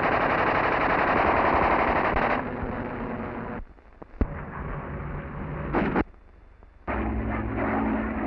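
Rapid, continuous machine-gun fire from an aircraft for the first two seconds or so, dropping to a rumble with two brief drop-outs and a single sharp crack. Near the end a steady aircraft engine drone sets in.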